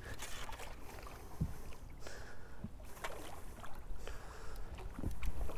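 Faint water noise around a small fishing boat, with wind on the microphone and a few light knocks.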